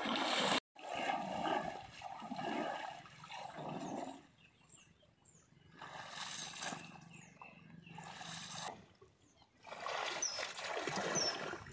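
Pond water splashing and sloshing as a person wading in the shallows pulls up clumps of algae and weeds by hand and flings them aside, in several bouts with quieter pauses between. Faint short high chirps in the quieter stretches.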